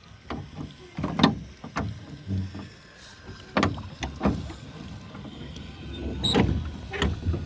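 Oars working a small rowboat: uneven knocks and splashes, about one stroke a second.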